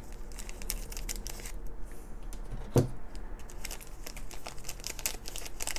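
Thin plastic foil blind bag crinkling and crackling in a run of short irregular strokes as it is cut open with scissors and handled, with one brief low thud nearly three seconds in.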